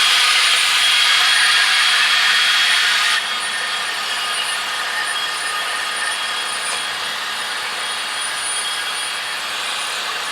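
Power drill running steadily, used to clean rust and corrosion off a wheel-bearing seat; about three seconds in the sound drops a step quieter and carries on.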